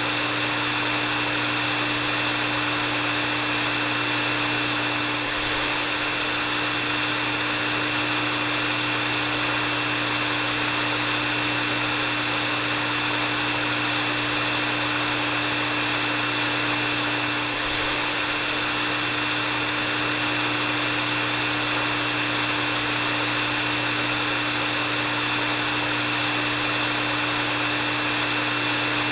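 Hair dryer running steadily: a constant blowing rush of air with a thin steady whine and a low hum from the motor.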